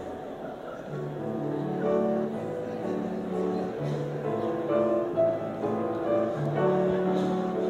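Slow instrumental music, held notes over a lower bass line.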